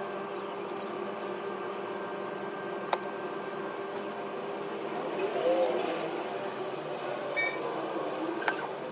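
Steady electrical hum with two sharp clicks and a short, quick series of electronic beeps a little before the end.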